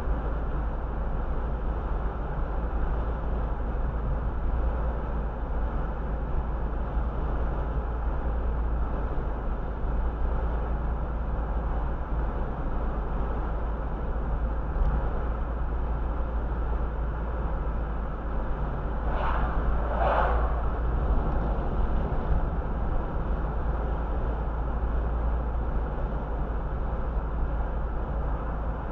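Steady road and engine noise inside the cabin of a moving car. There are two brief higher sounds about nineteen and twenty seconds in.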